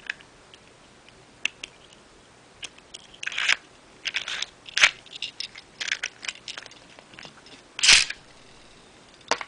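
Plastic clicks and rustling as the Earth Virgo Beyblade is handled on a green ripcord launcher and the toothed ripcord is fitted. About eight seconds in comes one short, loud rasp as the ripcord is pulled to launch the top.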